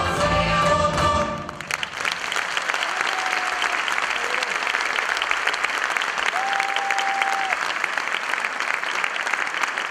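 A folk vocal group with instrumental backing sings its final notes, which stop about a second and a half in; the audience then breaks into steady applause.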